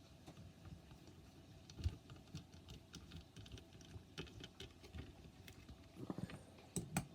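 Faint, irregular small clicks and taps of a screwdriver working tiny screws out of a graphics card, with a few sharper clicks near the end.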